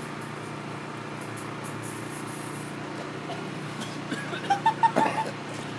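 Pepper spray canister hissing in short spurts over the first few seconds, over a steady low hum. A few brief vocal sounds come about four to five seconds in.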